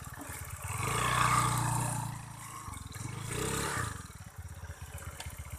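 Small motorcycle engine revving up twice: a long loud rise and fall in the first half, then a shorter second rev.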